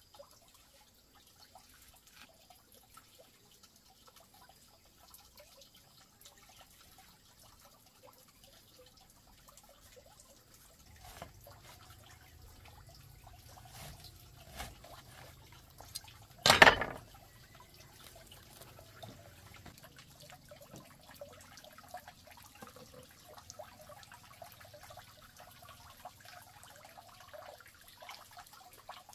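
Faint dripping, liquid sounds and light taps, with one sharp knock a little past the middle.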